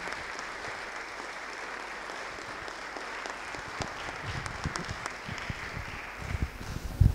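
Audience applauding steadily, dying away near the end, with a few low thumps as it fades.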